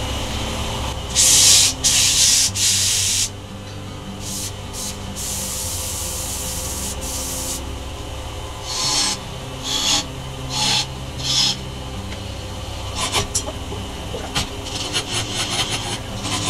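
Sandpaper rubbing against a wooden mallet head spinning on a wood lathe, with the lathe running steadily underneath. The sanding comes in long passes in the first half and quicker short strokes near the end.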